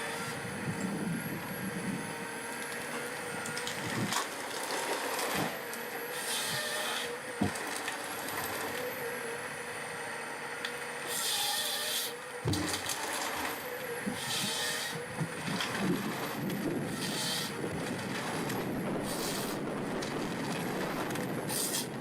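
Heavy forestry machine working: a steady engine with short hissing spells every few seconds and a few sharp knocks, like logs striking metal.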